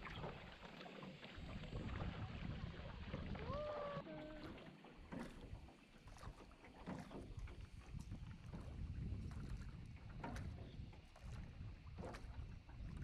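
Hand-rowed sampan moving over calm water, its oars dipping and splashing with irregular knocks, under a steady low rumble of wind on the microphone.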